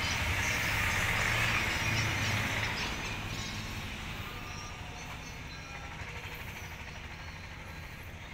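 A steady rumbling noise that is loudest for the first three seconds and then slowly fades.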